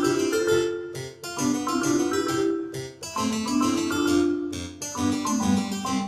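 Background music led by a keyboard instrument such as a piano or harpsichord, playing a melody over sustained lower notes.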